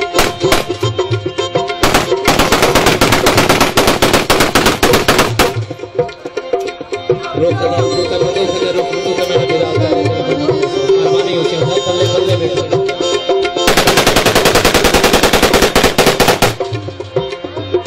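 AK-47-type automatic rifle fired in two long bursts of rapid shots, each about three seconds, with a few quick shots right at the start. Folk music with tabla plays underneath throughout.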